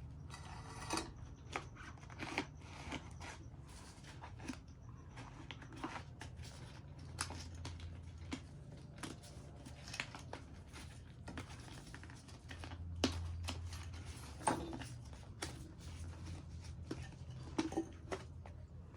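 Scattered light clicks and taps of metal suspension parts and tools being handled, over a faint steady low hum.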